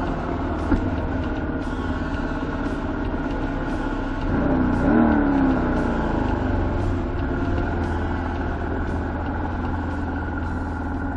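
Ducati Monster 695's air-cooled V-twin running at low revs. About four seconds in the revs rise and fall as the motorcycle moves off, then it settles back to a steady low-speed run.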